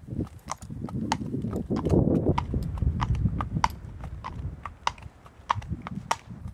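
A horse's hooves clip-clopping on a tarmac path at a walk: a steady rhythm of sharp hoofbeats.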